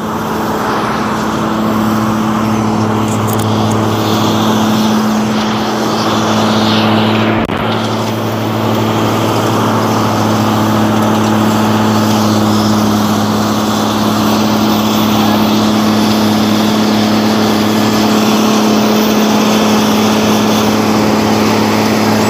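Wirtgen W 100 F cold milling machine running steadily while it mills asphalt, a continuous diesel drone with a steady low hum.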